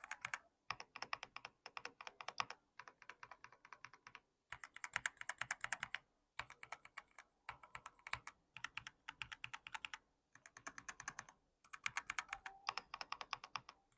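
Typing test on an Ajazz AK820 Pro mechanical keyboard fitted with Flying Fish switches: quick runs of soft key clacks lasting a second or two, with short pauses between them. The switches give a less pronounced sound profile than more tactile switches.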